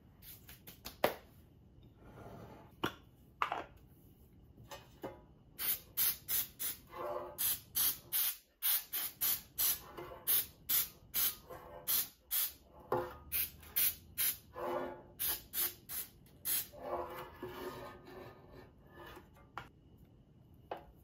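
Aerosol cooking spray hissing in a long run of short, quick bursts, about two to three a second, as it coats a metal loaf pan. A couple of sharp clicks come in the first seconds, before the spraying.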